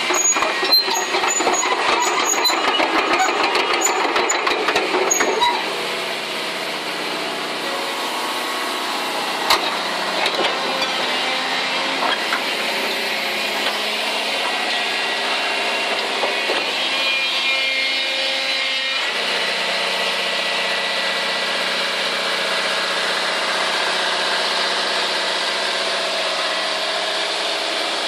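Hyundai Robex 300LC-7 crawler excavator's diesel engine running, with dense clattering and knocks for about the first five seconds, then a steady drone whose pitch and tone shift around two thirds of the way through.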